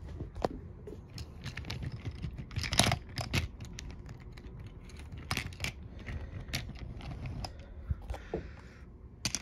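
Irregular light clicks and taps, with a louder cluster of them about three seconds in.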